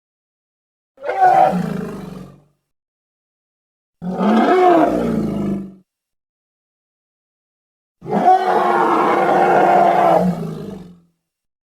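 Giant gorilla roar sound effects: three separate pitched roars, the last one the longest, each ending abruptly.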